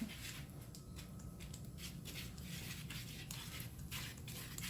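Cake batter being stirred by hand in a mixing bowl: quick, uneven scraping strokes of the utensil against the bowl, about two or three a second.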